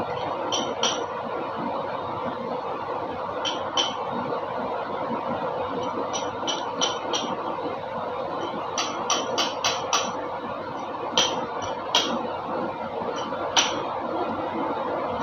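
Metal tools and engine parts clinking against each other in sharp, short knocks at irregular times, several in quick runs, over a steady background hum.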